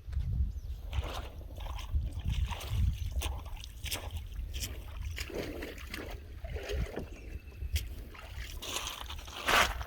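Water splashing and sloshing at a kayak's side, mixed with irregular knocks and rustles of handling, and a louder splash about nine and a half seconds in.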